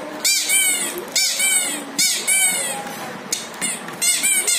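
Several chicks peeping, high calls about two a second that overlap at times.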